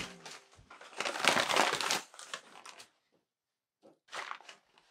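Rustling and crinkling noises in a few short bursts, the loudest lasting about a second from about a second in, with smaller ones near the end.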